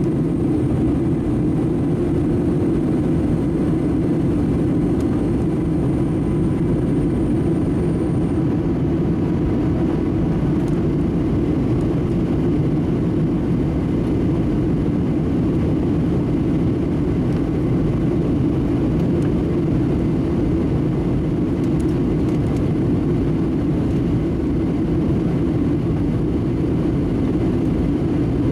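Steady engine and airflow rumble inside the cabin of a Boeing 737-700 during descent, with its CFM56-7B turbofans running. A faint high whine stops about eight seconds in.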